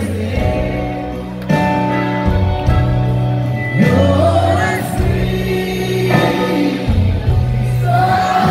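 Live country band playing: electric guitar, bass and drums under a singing voice that holds long notes, one after another, each lasting a second or two.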